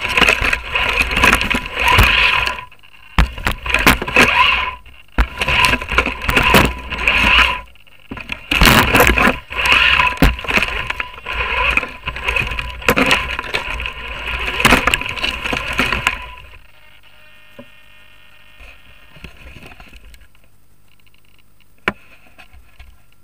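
Small electric motor of a radio-controlled model car whining in repeated bursts of throttle as it drives over twigs and forest litter. The motor stops about sixteen seconds in, and a single sharp click follows near the end.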